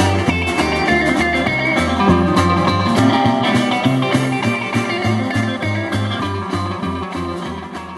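Rock and roll band music led by guitar over a steady walking bass line, fading out near the end as the song finishes.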